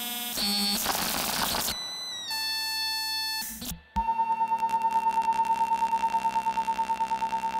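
Serge modular synthesizer being repatched: a hissing noise texture with pitched tones gives way to tones that step down in pitch. After a brief cut-out about four seconds in, a steady high tone starts, pulsing rapidly about seven times a second.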